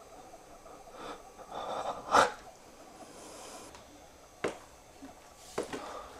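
Paper being handled: rustling and crinkling of notepad pages and crumpled paper, with several sharp snaps, the loudest about two seconds in.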